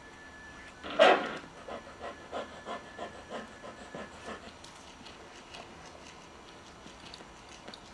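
A dog barks once, loudly, about a second in, then pants in quick even breaths, about three a second, for around three seconds before it fades.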